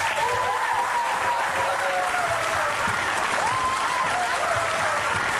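A crowd applauding steadily, with a few voices calling out over the clapping.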